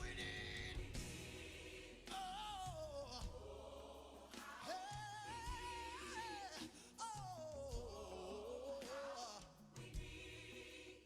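A gospel worship song: a voice singing long, sliding phrases over instrumental backing.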